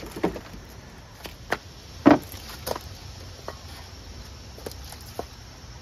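A few separate knocks and clunks of a Honda walk-behind mower being handled and shifted, with its wheel off. The loudest knock comes about two seconds in.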